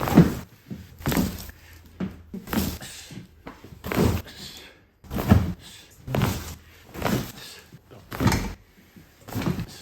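Chiropractic pelvic and lumbar adjustment thrusts: a series of about ten heavy thumps on the treatment table, roughly one a second.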